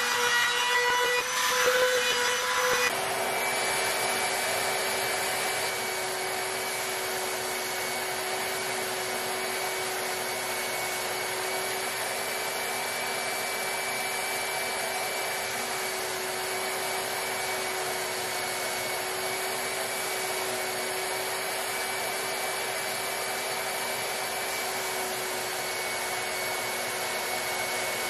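Woodshop power tools working boards: a machine with a steady pitched whine for about three seconds, then, after a sudden change, a different machine running steadily with a constant hum.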